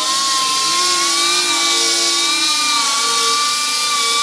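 Handheld pneumatic tool on an air hose running steadily with a high whine and hiss, its lower tones shifting slightly as it works against the metal, cleaning up missed spots on a bare-metal frame rail before painting.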